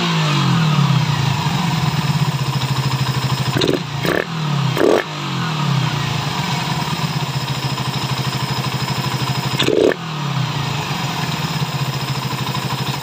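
Suzuki Raider R150 Fi single-cylinder motorcycle engine with a modified throttle body, running at idle and revved in short sharp throttle blips around four to five seconds in and again near ten seconds, the revs falling back to idle after each.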